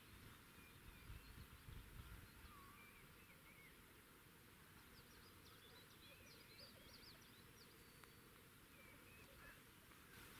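Near silence outdoors with faint, scattered chirps and whistles of small birds, and a quick run of twittering about halfway through.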